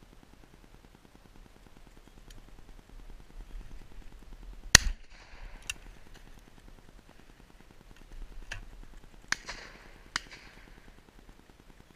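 A shotgun fires one very loud, sharp shot at close range at a driven pheasant, about five seconds in, with a short echo after it. Four fainter shots follow over the next five seconds, the last two about a second apart.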